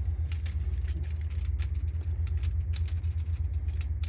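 A steady low machine hum, with many quick small clicks and crinkles from a silicone pastry brush dabbing olive oil onto sliced potatoes on a foil-lined tray.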